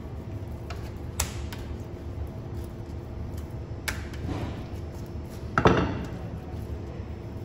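A knife cutting raw chicken on a cutting board, with a few sharp clicks and knocks of the blade and a louder metal clatter against a stainless steel tray about five and a half seconds in. A steady low hum runs underneath.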